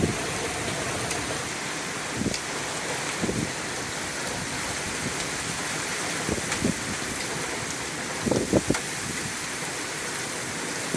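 Heavy, steady downpour: dense rain pouring and splattering. A few brief low thumps cut through it, the loudest about eight and a half seconds in.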